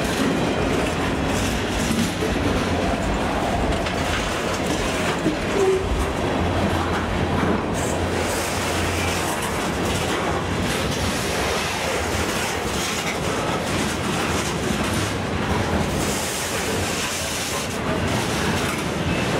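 Freight train's boxcars rolling past at close range: steel wheels clacking over the rail joints, with the steady rumble and rattle of the cars.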